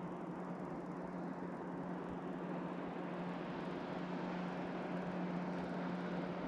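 Steady low hum of a bass boat's bow-mounted electric trolling motor, with an even hiss underneath, growing slightly louder about two-thirds of the way through.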